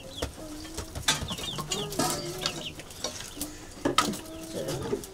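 Chickens clucking, with short high chirps and scattered sharp knocks and clicks.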